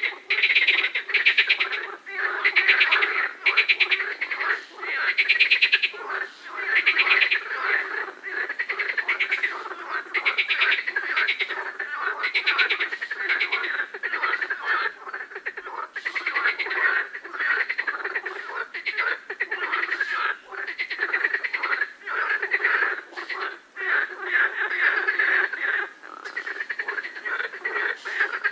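A chorus of frogs croaking, rapid pulsed calls in overlapping bouts about every second or so.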